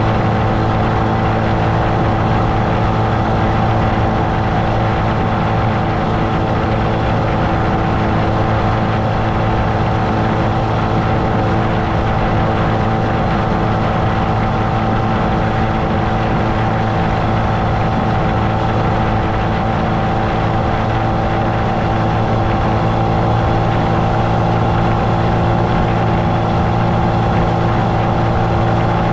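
1999 Mercury 25 hp two-stroke outboard running steadily at speed, with the wake's water rushing behind the boat. The engine note holds an even pitch throughout.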